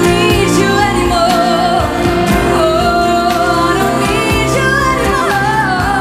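Background pop music with a singing voice over a steady beat.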